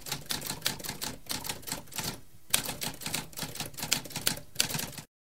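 Typewriter keys striking in a rapid run of sharp clacks, with a brief pause about two seconds in, stopping suddenly near the end.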